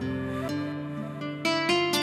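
Background music of plucked string notes, with a quick run of notes about one and a half seconds in.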